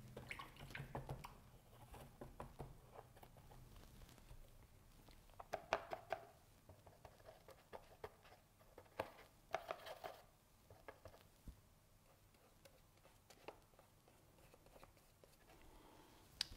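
Faint clicks and taps of a paintbrush against a plastic paint palette and pot as paint is picked up and mixed, in a few short clusters, loudest around six and ten seconds in.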